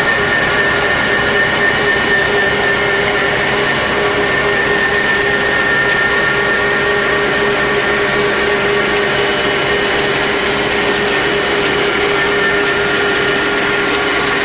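Red currant harvester and its Kioti tractor running steadily: a loud, continuous machine noise with a steady whine.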